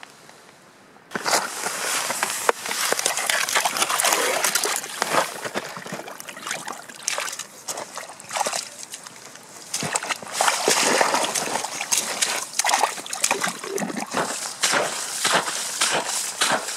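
Boots splashing and crunching through slush and meltwater lying on lake ice, starting suddenly about a second in and going on as a dense run of sloshes and crackles.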